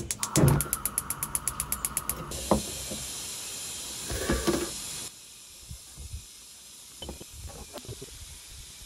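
A fast, even run of mechanical clicks, about ten a second, for roughly two seconds, then a steady hiss that cuts off suddenly about five seconds in, followed by a few faint knocks.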